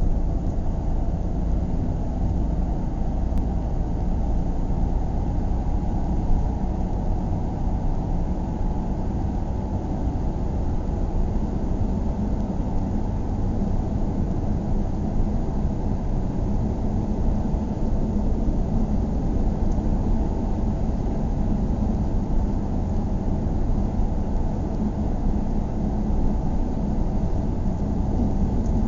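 Car driving steadily at road speed: a continuous low rumble of engine and tyre noise, with a low hum coming up a little about a third of the way in.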